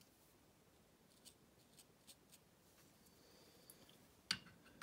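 Near silence with a few faint light clicks. Near the end come several sharper clicks as the guided-rod knife sharpener's stone holder and guide rod are picked up and handled.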